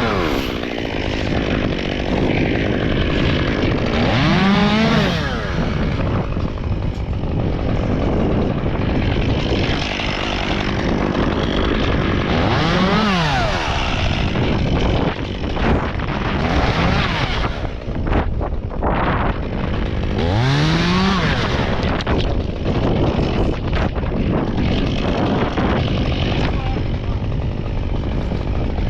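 Chainsaw running loudly, revving up and dropping back three times.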